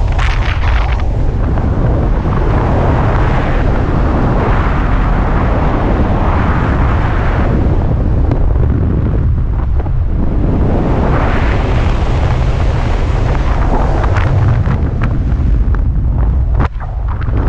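Loud wind rushing and buffeting over the camera microphone during speed-wing flight, a deep steady rumble with waves of hiss rising and falling every few seconds, and a few short clicks near the end.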